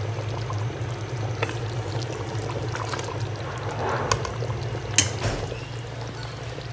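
Potato and mutton curry simmering in an aluminium pot, a soft bubbling over a steady low hum. A single sharp click sounds about five seconds in.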